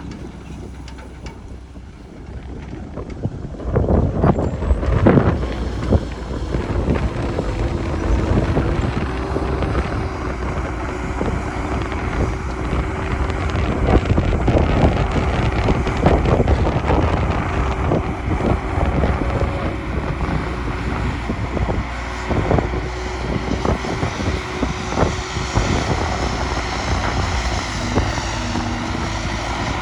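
Heavy earthmoving machinery at work: diesel engines running with a steady whine over them and repeated clanks and knocks, getting louder about four seconds in.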